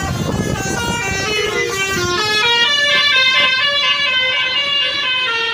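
Bus telolet horn playing a rapid tune of many short pitched notes, stepping up and down several times a second, over a low rumble that fades out about two seconds in.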